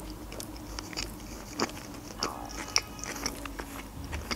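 Close-up chewing of a mouthful of fast food: wet mouth clicks and a few crisp crunches, the loudest about a second and a half and nearly three seconds in, over a faint steady hum.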